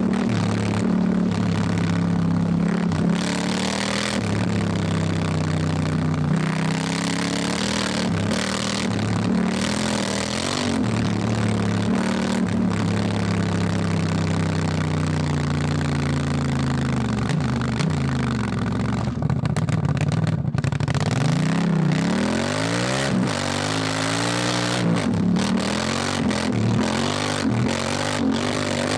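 Honda Africa Twin's parallel-twin engine pulling under way, the revs held fairly steady at first, then dropping and rising again several times in the second half as the throttle is rolled off and back on. A steady hiss of wind and road noise runs underneath.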